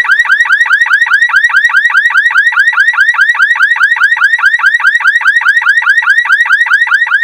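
A loud electronic chirping tone, one short rising-and-falling chirp repeated evenly about six or seven times a second, like an alarm.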